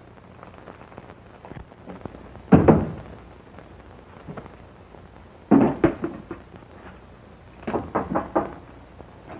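Knocks and thumps of a suitcase being handled: a loud single thump, then a few seconds later a sharp knock with a short rattle as the case is set down on a wooden chair, and near the end a quick run of four or five clicks as its catches are worked and it is opened.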